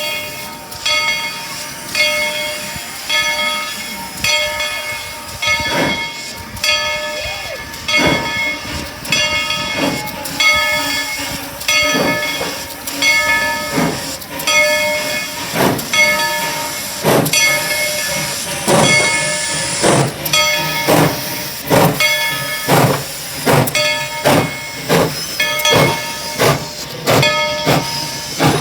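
Mikado-type (2-8-2) steam locomotive No. 190 pulling away with its bell ringing about once a second, while its exhaust chuffs set in and come steadily faster as it picks up speed.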